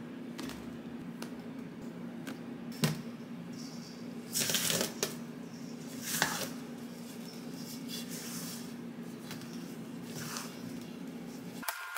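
Silicone spatula scraping and pressing softened butter into flour in a stainless steel mixing bowl, with scattered clicks of the spatula against the bowl and louder scrapes about four to five seconds in, around six seconds and again near ten seconds. A steady low hum runs underneath.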